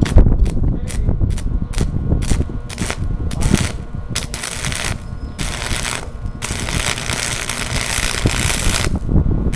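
Stick welder arc crackling and spitting in quick sharp snaps, then settling into a longer steady hiss about halfway through as a weld is run.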